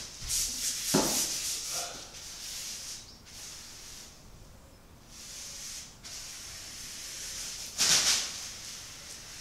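Paintbrush rubbing across a large canvas in separate strokes, a hissing scrape with each. There is a sharp knock about a second in, and the loudest scrape comes near the end.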